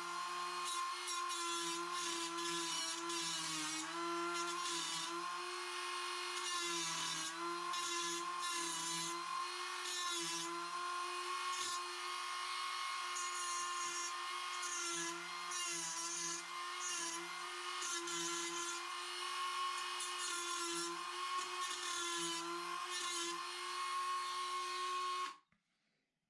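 A small handheld power tool running steadily at high speed as it cuts into the seized brass bonnet nut of a shower valve, with a grinding hiss over its whine. It stops abruptly about a second before the end.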